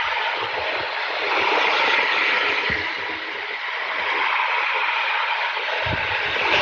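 H0-scale PIKO Siemens Eurosprinter ES64F4 model locomotive running on analog power around sectional track, pulling coaches: a steady hiss-like whir of motor and wheels that swells and fades twice, with a few low knocks.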